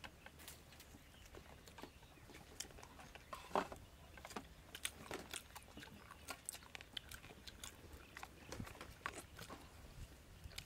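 Several people eating chicken breast and rice: chewing and biting, with many soft scattered mouth clicks and a louder click about three and a half seconds in.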